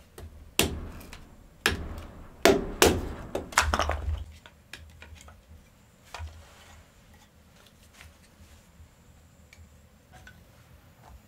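A series of sharp knocks, about five strikes in the first four seconds, the loudest two close together near the middle of that run; after that only faint, scattered clicks.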